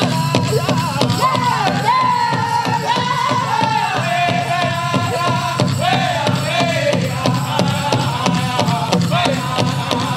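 Powwow drum group singing a chicken dance song, voices in phrases that fall in pitch over a steady beat on the big drum.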